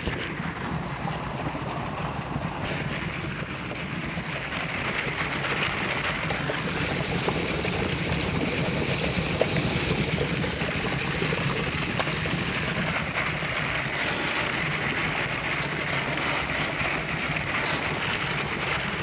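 A 354-plate HHO hydrogen generator running at full output, about 57 amps: a steady, grainy rushing noise of gas bubbling through the cells and tubing, getting a little louder about six seconds in.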